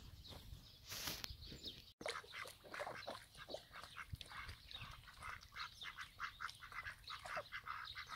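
Ducks dabbling in a shallow muddy pond: many quick, faint clicks and small splashes from bills working the water, with a few soft duck calls.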